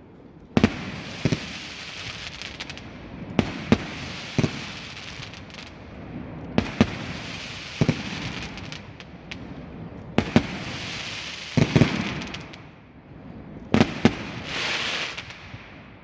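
Black Mamba multi-shot firework firing: sharp bangs every second or two, some in quick pairs, each followed by a spreading crackle.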